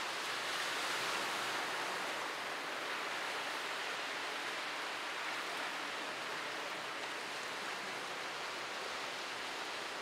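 Sea surf washing onto the shore, a steady rushing noise of breaking waves.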